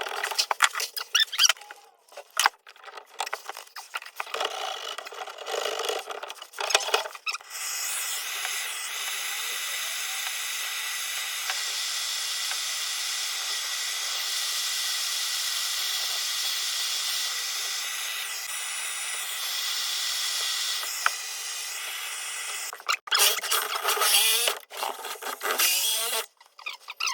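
Tool work on plumbing: irregular scraping and knocking, then a steady hissing run of a tool for about fifteen seconds, then more scraping near the end.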